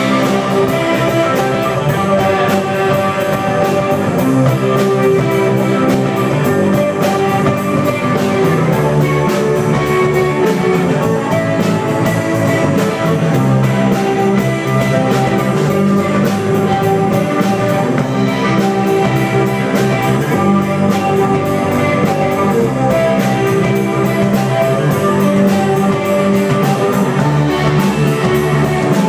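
Live rock band playing: distorted electric guitar and electric bass over a drum kit keeping a steady, busy beat.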